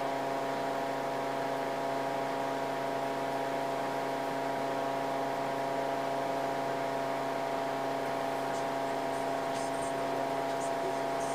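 Steady electrical hum made of several fixed tones over an even background hiss, unchanging throughout, with a few faint ticks near the end.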